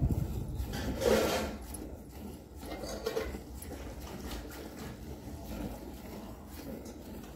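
Buffalo being hand-milked: repeated squirts of milk into a partly filled steel bucket. A louder, short burst of noise comes about a second in.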